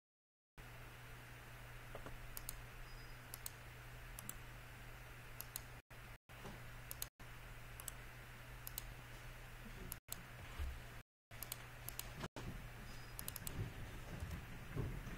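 Faint, scattered computer mouse clicks and keyboard key presses over a steady low hum. The sound cuts out completely for brief moments several times.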